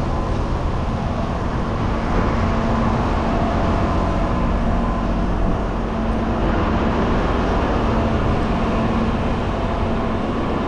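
Steady industrial rumble with a faint constant hum, with wind buffeting the microphone.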